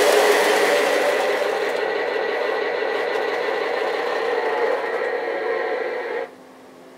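Lionel F3 ABA diesel model train running on O-gauge track, a steady rolling rumble and motor hum. It is loudest as the train passes close, eases off as it moves away, and cuts off suddenly about six seconds in.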